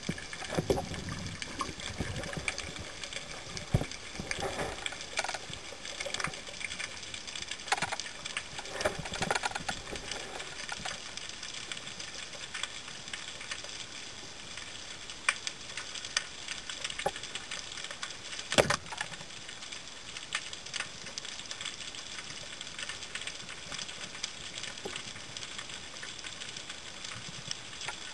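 Underwater sound from a camera carried by a freediver: a rush of moving water with scattered crackling clicks, busier in the first ten seconds, and one sharp loud crack about two-thirds of the way in.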